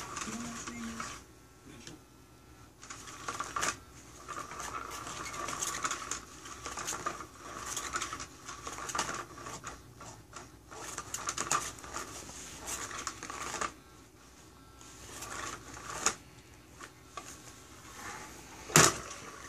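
Hot Pursuit cat toy running: its small motor whirs as the wand sweeps around under the fabric cover, with irregular rustling and ticking. One sharp knock near the end.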